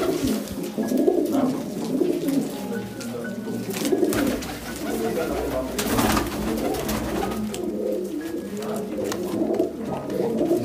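Domestic flying pigeons cooing in their loft cages, several birds overlapping without a break, with a couple of brief sharp noises around the middle.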